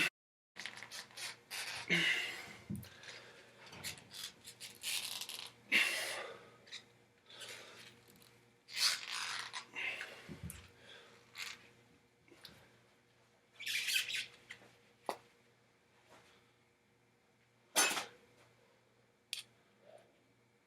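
Intermittent handling noises: short rustling and scraping sounds with squeaks and a few sharp clicks, coming and going irregularly.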